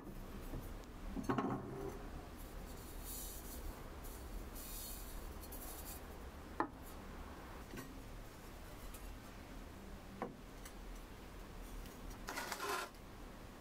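Bisque-fired ceramic cups and bowls being lifted out of an electric kiln and set down on a wooden board: soft scraping and rubbing of unglazed clay on wood, with a few sharp clinks as pieces are put down.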